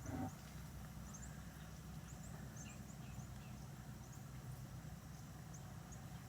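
Faint birdsong: short, high chirps scattered every second or so over a low steady hum, with a brief low thump right at the start.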